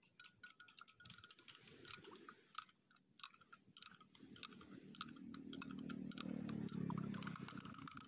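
A metal spoon stirring in a glass measuring jug, clinking against the glass in many quick light ticks. About halfway through, a low hum swells up and becomes the loudest sound near the end.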